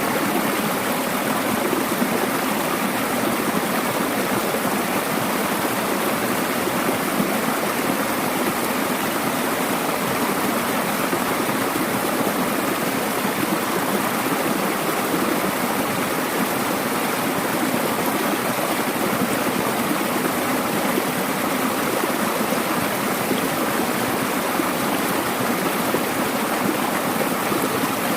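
Mountain valley stream rushing steadily over rocks, a continuous even splashing of water with small cascades.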